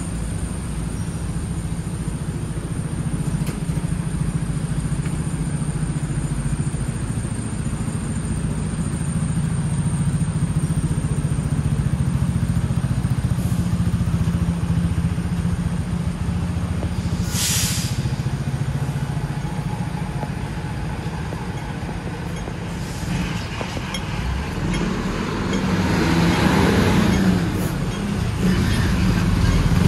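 Hong Kong double-decker tram running along its street track: a steady low rumble and hum from the motors and wheels on the rails, with a short hiss a little past halfway, and the noise growing louder near the end.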